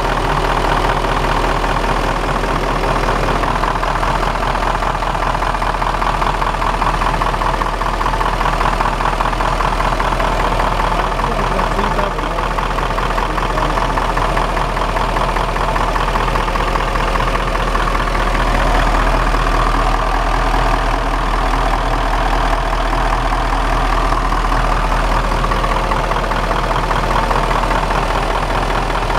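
Diesel engine of a Niigata NR653 rotary snowplow running steadily during an operation check.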